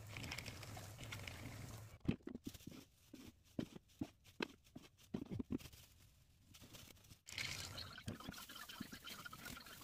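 Electric paper shredder running with a low hum while a sheet is fed in, then stopping about two seconds in. Scattered light knocks and rustles of a plastic bag being handled follow, and a steady rushing, rustling noise comes in about two-thirds of the way through.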